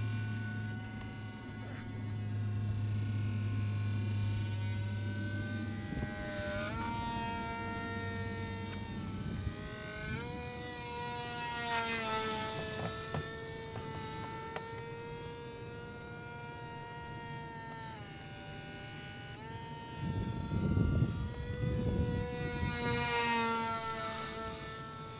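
The WLtoys F959S Sky King's small electric motor and rear-mounted propeller whine as the plane flies overhead. The pitch steps up and down several times with the throttle. A low hum runs through the first few seconds, and a burst of low rumble comes about twenty seconds in.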